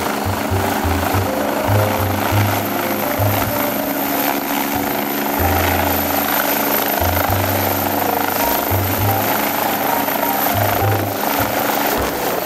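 Helicopter turbine engine and main rotor running at power for take-off, with a high, steady turbine whine, as the helicopter lifts off the grass near the end. Music plays along.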